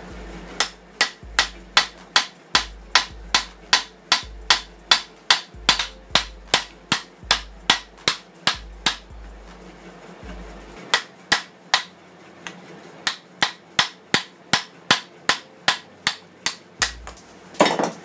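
Hammer striking a steel bolt used as a drift, about three blows a second with a metallic ring, driving the copper secondary winding out of a microwave oven transformer's laminated core. There is a pause in the middle, then a second run of blows, and a louder, heavier knock near the end.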